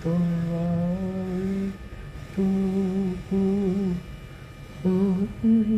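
One person humming a slow hymn tune: long held notes in short phrases with brief pauses between them.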